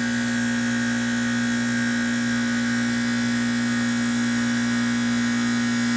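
Trane XR13 heat pump compressor running with a steady hum while the outdoor fan is stopped. This is the forced defrost cycle: the unit is switched over to cooling and head pressure is building on the outdoor coil.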